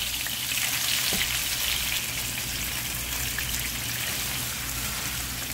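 Pieces of turmeric-marinated boal (wallago catfish) shallow-frying in hot oil in a non-stick frying pan, the oil sizzling and crackling steadily around the fish.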